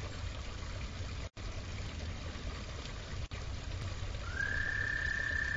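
A frog in the garden pond gives a long, steady, high trill that stops right at the start, then starts again about four seconds in, sliding up briefly before holding its pitch. Underneath is a steady low hum and hiss, and the sound cuts out twice for an instant.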